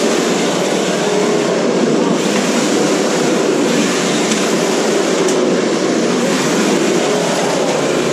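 Several 1/10-scale RC cars running together in a derby: a steady, loud mix of motor, gear and tyre noise, with a few faint knocks from contact.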